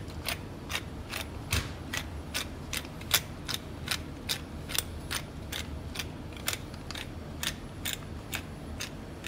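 Hand pepper mill grinding pepper: a steady, even run of short crunching clicks, about two to three a second.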